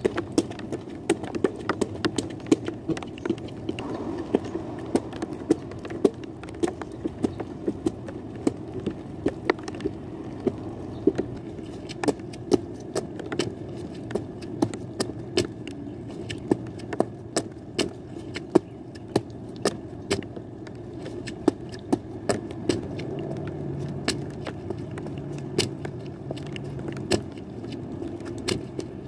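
Raindrops ticking irregularly, several times a second, close to the microphone over a steady low rumble.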